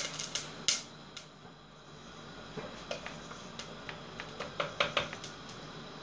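Vadagam frying in hot sesame oil, crackling and popping: a few louder cracks in the first second, then scattered sharp pops from about two and a half seconds in.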